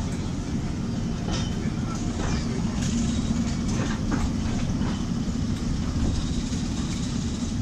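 Train rolling slowly on rails, heard from an open brake van behind a Class 08 diesel shunter: a steady low rumble with a constant engine hum and scattered light clicks.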